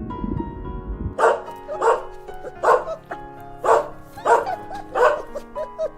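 A dog barking in a quick series, about seven barks starting about a second in, over background music.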